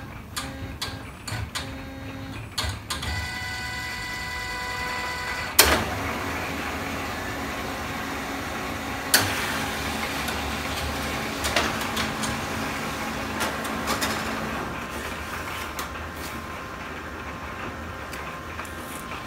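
Laser printer-copier printing a sheet of ceramic transfer paper. A few clicks near the start, a whirring tone for a couple of seconds, a sharp clunk, then the mechanism runs steadily for most of the rest.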